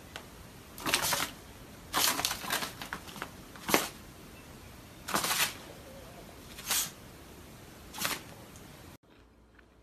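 About six short, breathy hissing bursts spaced a second or so apart from a small dog and a kitten squaring off at each other.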